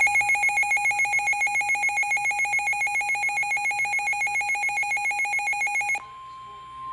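Weather radio alert alarm: a loud, rapidly pulsing electronic beep that cuts off about six seconds in. A single steady, slightly higher warning alarm tone then takes over, the NOAA Weather Radio signal that precedes a warning message.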